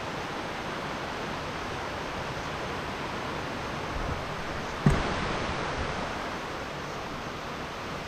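Steady rushing of waterfall water, with a single sharp knock about five seconds in.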